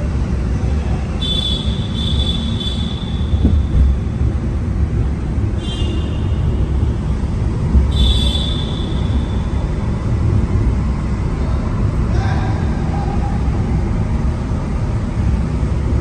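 Vehicle driving through a road tunnel: a steady, loud low rumble of engine and tyre noise on the road. Three short high-pitched tones sound in the first half.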